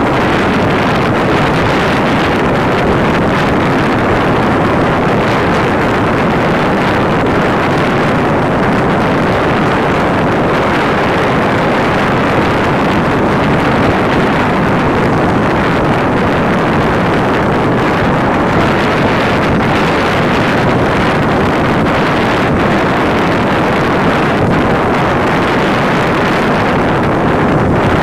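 Diesel farm tractor engine running steadily as it tills a flooded paddy field, mixed with wind buffeting the microphone.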